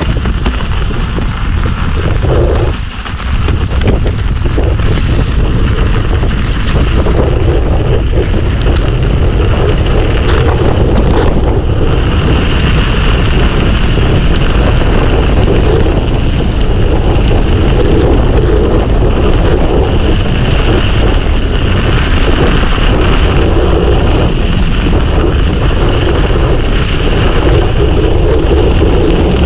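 Mountain bike on studded tyres riding a trail: continuous rolling rumble and rattle with wind buffeting the microphone, louder after about three seconds.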